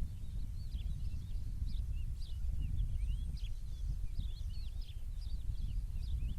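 Small birds chirping and twittering, many short quick calls overlapping several times a second, over a steady low rumble.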